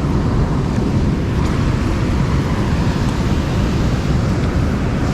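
Steady, loud rush of water pouring through a dam spillway, heaviest in the low end and unbroken throughout.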